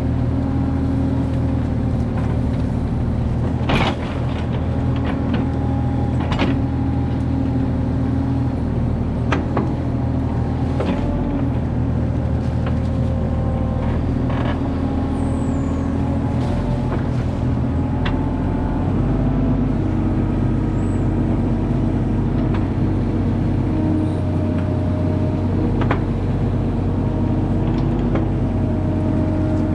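Mini excavator running steadily while digging, with occasional sharp knocks and scrapes as the bucket works the dirt. The engine's pitch steps up about two-thirds of the way through.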